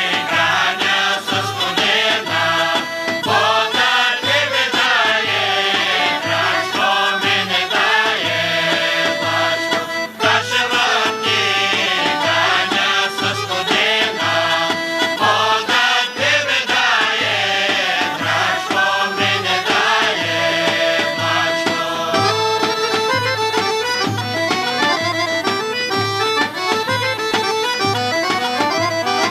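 Bulgarian folk music: a group of women singing together over accordion, gaida bagpipe and a steady tapan drum beat. About two thirds of the way through, the singing stops and the gaida and accordion carry the tune on over the drum.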